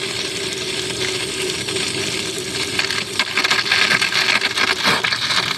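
Water from a garden hose backfilling a boat hull's drain-plug hole and spilling back out, splashing onto pavement, flushing manufacturing chips of aluminium and fiberglass out of the lower bilge. The splashing gets louder about three seconds in.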